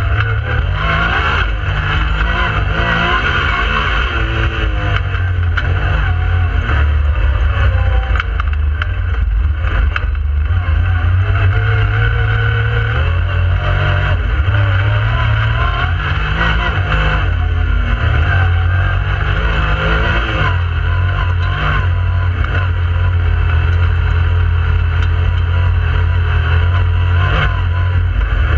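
Yamaha YXZ1000R side-by-side's three-cylinder engine running under way, heard from inside the cab, its pitch rising and falling every few seconds as the driver accelerates and lets off. A steady low drone underlies it, with occasional short knocks.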